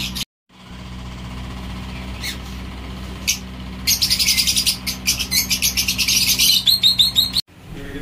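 Pet cockatiels and budgerigars in an aviary chirping: a few single chirps, then a dense run of rapid high chirps from about four seconds in. A steady low hum runs underneath.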